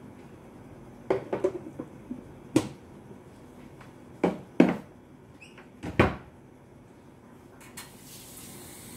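Kitchen clatter: a scattering of sharp knocks and clacks as things are handled off to the side, coming in small clusters with the hardest knocks a little past the middle. A soft hiss rises near the end.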